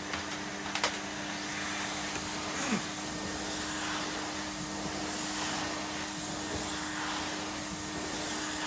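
Numatic Bertie PSP 200A vacuum cleaner running steadily on its low setting, a fairly quiet even hum, with a sharp click about a second in.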